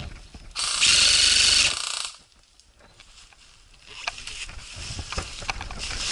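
Airsoft electric gun fired in one full-auto burst of about a second, a rapid buzzing rattle. It is followed after a short quiet by faint clicks and rustling.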